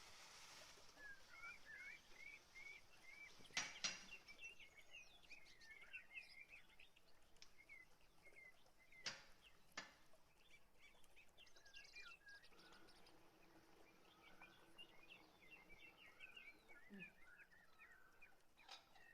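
Faint birdsong: many small birds giving short, quick chirps throughout, with a few sharp clicks around four seconds in and again near ten seconds.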